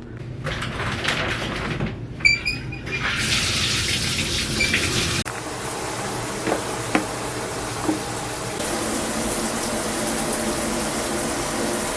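Water running steadily from a tap, a constant hiss that grows fuller about three seconds in, with a few brief high squeaks around two seconds in.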